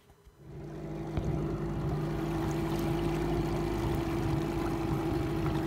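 A small boat's outboard motor starts in about half a second in and then runs at a steady, even pitch, as when trolling a lure at slow speed.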